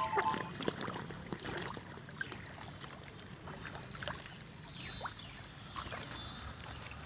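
Many large pond fish gulping at the water surface: scattered small splashes and sucking clicks over soft water noise.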